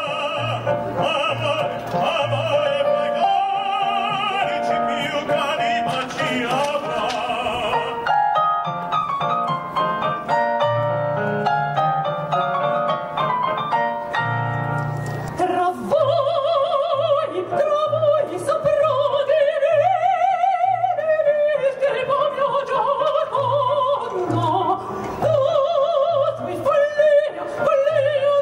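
Operatic singing with strong vibrato, amplified through microphones, over an electronic keyboard playing a piano accompaniment.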